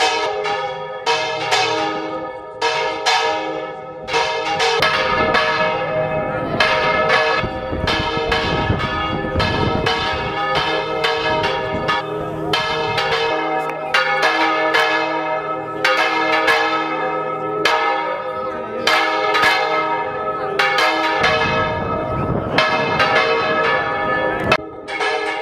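Bronze church bells rung by hand in a small belfry, struck over and over in an irregular peal of about one to two strokes a second, each stroke ringing on into the next.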